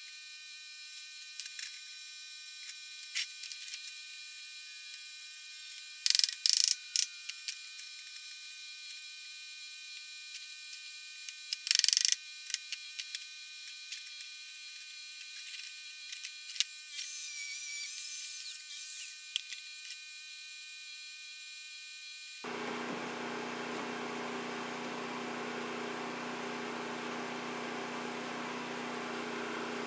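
Lincoln Electric welder making a few short, loud tack-weld bursts on the sheet-metal box, among light clicks of metal parts being handled. About two-thirds through, a steady hum cuts in suddenly.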